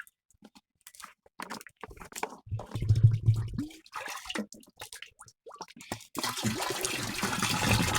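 Water being poured and splashing into a big blue container, with scattered knocks and clicks of handling. A steady pouring rush starts about six seconds in, as the container is filled for mixing the herbicide.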